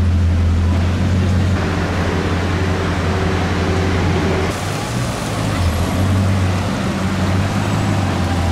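Car engines running at low revs in slow street traffic: a steady low drone with no revving, whose tone changes about halfway through as a different car passes.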